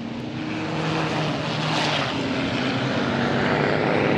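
Diesel engines of several racing trucks running hard in a close pack, a steady drone with a few held engine tones that grows slightly louder as the trucks come nearer.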